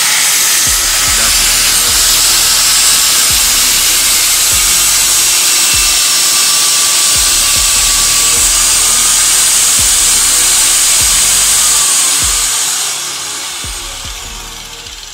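INGCO angle grinder cutting through steel threaded rod, a loud steady hiss with a thin whine, which winds down and fades out about three-quarters of the way through. Background music with a steady beat runs underneath.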